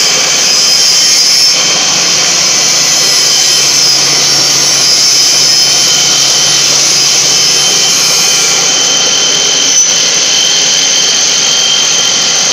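Stainless-steel colloid mill (nut butter grinder) running while grinding paste: a loud, steady high-pitched whine with a low hum beneath. A single short tick sounds near ten seconds in.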